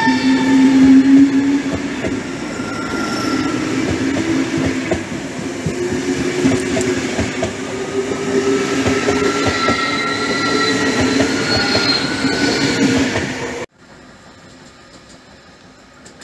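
PKP Intercity ED250 Pendolino electric train moving along the platform: wheels clattering over the rail joints, with electric motor whine rising in pitch as it gathers speed. Cuts off abruptly about three-quarters of the way through, leaving only a faint steady hiss.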